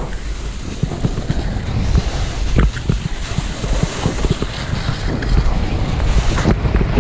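Wind buffeting the microphone during a fast downhill run on snow, a loud gusting rumble, mixed with the rasping and clattering of the rider's edges over hard, uneven snow.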